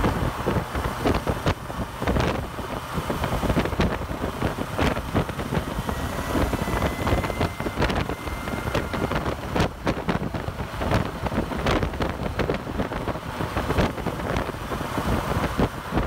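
Wind rushing and buffeting over the microphone while riding a Kawasaki Versys 1000 at motorway speed in sixth gear, with its inline-four engine and the tyres running under the wind. Frequent irregular buffets punch through the steady rush, and a faint whistle comes in around the middle.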